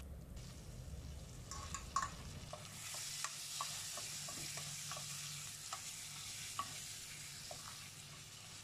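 Wooden spatula stirring potato and tomato chunks with onions and spices frying in oil in a stainless steel kadai. A faint sizzle, with a scatter of light scrapes and taps of the spatula against the pan.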